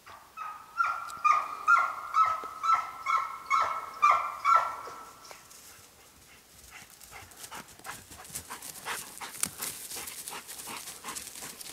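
Hamiltonstövare hound yelping, about ten high, evenly spaced yelps at roughly two a second, stopping after about five seconds. It is followed by quieter rustling and twig snapping as the dog runs through undergrowth.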